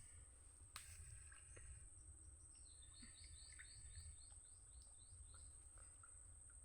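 Faint outdoor ambience: a bird gives a quick run of about eight short chirps in the middle, with scattered faint chirps after. A steady high-pitched whine and a low rumble run underneath, with one sharp click just under a second in.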